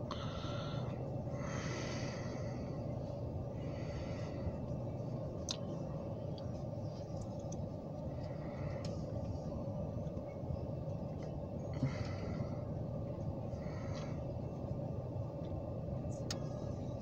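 Steady low rumble of a slowly rolling freight train of covered hopper cars, heard through a car, with a few faint clicks. Soft breaths are heard now and then.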